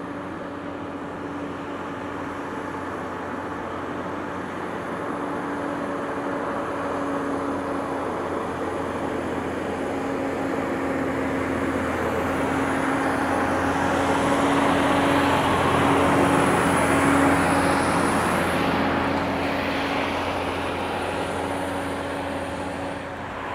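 Heavy diesel truck engine pulling steadily under load on a climb, at an even pitch. It grows louder to a peak about two-thirds of the way through, then eases off.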